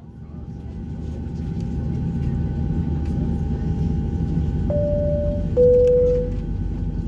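Steady low rumble of a Boeing 757 airliner cabin with a faint steady whine, fading in at the start. About five seconds in, a two-note high-low cabin chime sounds, the second note louder.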